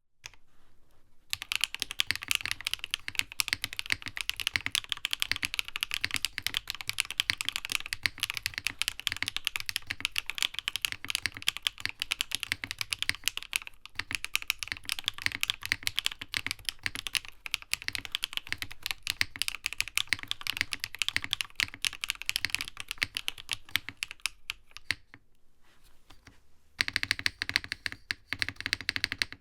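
NovelKeys Classic TKL mechanical keyboard being typed on fast and continuously, a dense run of key clacks. The typing stops briefly near the end, then resumes with a deeper, fuller sound.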